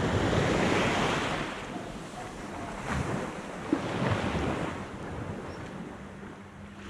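Small waves washing onto a sandy beach, swelling and fading a few times, with wind buffeting the microphone.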